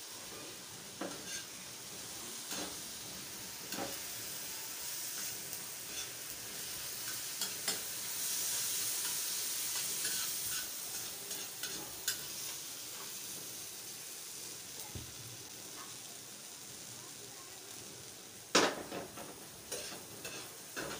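Chopped capsicum and tomato masala sizzling on a flat tawa, with a spatula scraping and tapping against the pan as the masala is stirred and fried (bhuna). A louder scrape comes near the end.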